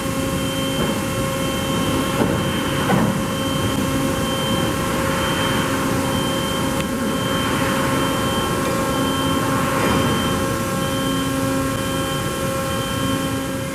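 Vanguard CNC vertical boring mill running: a steady machine hum and hiss with several constant tones, and a lower tone that cuts in and out every second or two.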